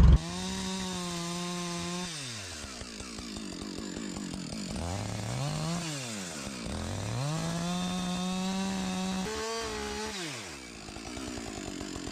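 Chainsaw cutting notches down into a pine log: it revs to full throttle and holds while cutting, then drops back to idle, three times over.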